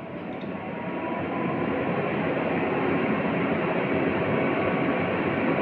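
Cooling fan of a Crown FM transmitter amplifier starting up as the unit is switched on: a steady rush of air noise that builds over the first second or so and then holds.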